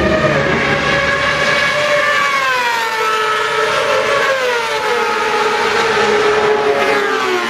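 A racing engine at high revs passing by, its pitch falling steadily over a few seconds as it goes past and away, then falling again near the end.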